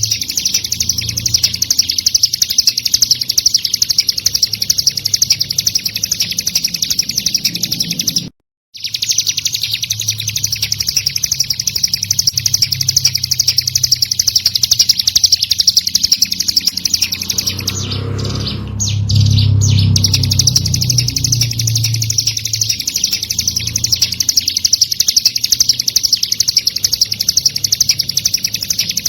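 Ciblek gunung (a prinia) singing: a fast, unbroken run of high chirps repeated over and over. It cuts out to silence for about half a second around eight seconds in, and a low rumbling noise sits under the song for a couple of seconds past the middle.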